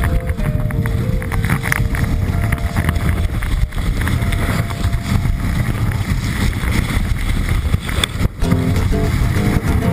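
Wind rushing over the microphone and skis running on snow during a fast downhill ski run, a loud continuous rumble. A few held music notes sound near the start and again near the end.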